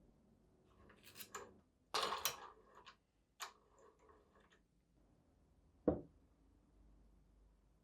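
Scattered light clicks and knocks, with a louder rattling scrape about two seconds in and one sharp click near six seconds.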